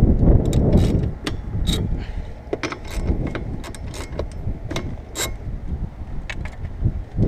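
Hand ratchet wrench clicking in short, irregular runs as the windshield wiper-arm nuts are loosened, with clinks of metal tools being handled.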